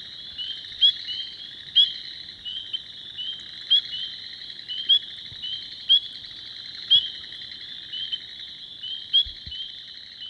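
Spring peepers calling in a marsh at night: loud, short rising peeps about once a second over a dense, steady background chorus of frogs.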